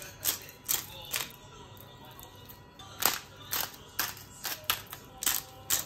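Pepper mill grinding black peppercorns, a run of short grinding clicks about two to three a second, with a pause of a couple of seconds near the middle.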